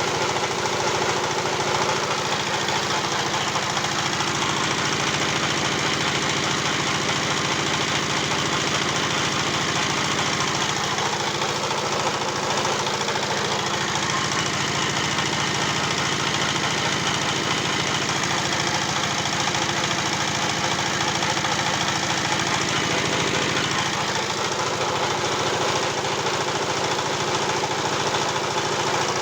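Pellet-making machine running steadily, a constant mechanical drone with a fast, even pulse.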